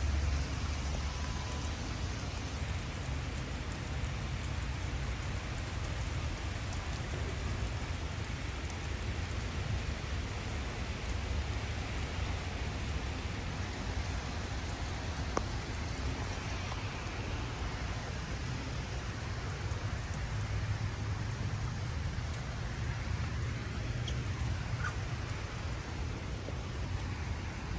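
Steady heavy rain falling on pavement and parked cars: a continuous, even hiss with a low rumble underneath.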